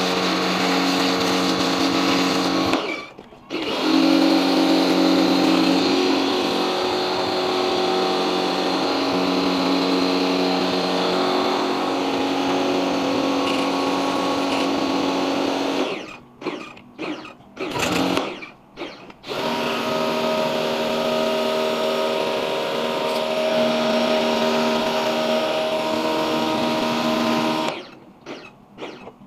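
Small electric pressure washer running, its motor and pump giving a steady whine while the spray gun jets water onto an air-conditioner evaporator coil. It stops briefly about three seconds in, again for about three seconds past the middle, and cuts off near the end.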